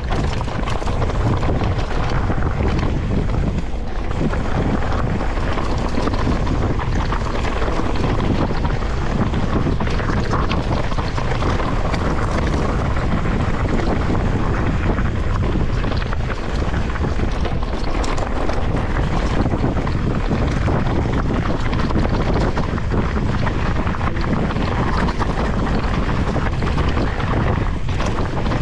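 Wind buffeting an action camera's microphone on a mountain bike moving along a trail: a steady loud rush, with small ticks and rattles from the bike and tyres underneath.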